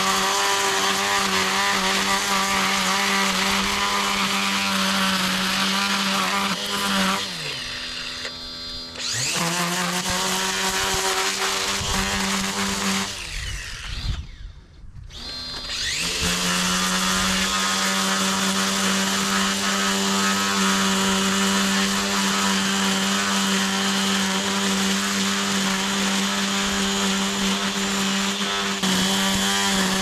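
Cordless Makita power head trimming along a grass edge, its electric motor running at a steady high whine. About a third of the way in the pitch sags and recovers, and near the middle the motor winds down almost to a stop before spinning back up to full speed.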